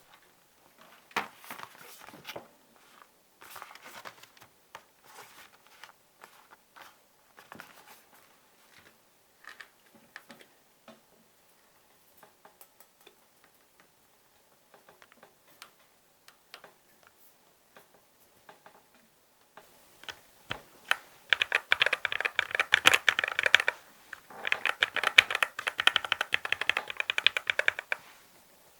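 Mechanical keyboard keys on a GMMK Pro with Akko x TTC Demon switches and a brass plate. Scattered single clicks at first, then, about twenty seconds in, two quick runs of rapid key clacking, the loudest part.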